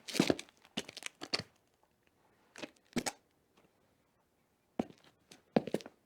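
Footsteps on a hard floor: single steps in short uneven groups, several just after the start, a pair about two and a half seconds in, then more near the end, with quiet pauses of over a second between groups. Each step lands as a quick heel-then-toe double knock.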